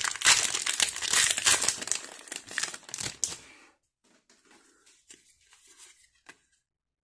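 Foil wrapper of a Pokémon trading card booster pack being torn open and crinkled, a dense crackling for about three and a half seconds, then only a few faint rustles and ticks.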